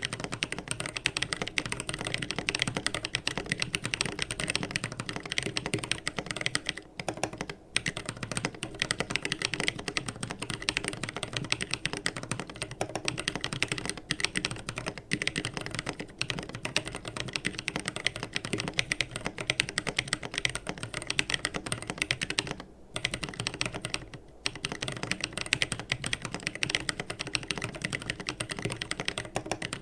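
Keebio Nyquist ortholinear mechanical keyboard being typed on quickly and continuously, dense clacking keystrokes with a few brief pauses.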